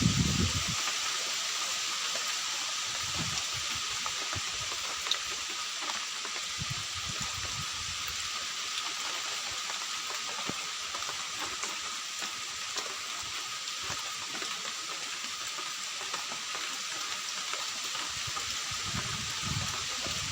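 Steady rainfall, an even hiss without pause, with a faint steady tone under it. A brief low rumble sounds in the first second.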